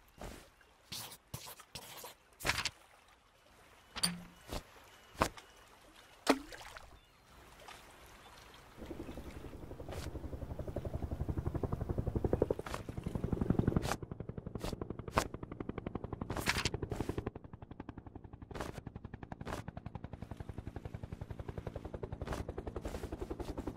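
A few scattered short knocks and clicks. Then, from about nine seconds in, a cartoon helicopter's rotor chops in a fast, steady beat, loudest for a few seconds soon after it starts.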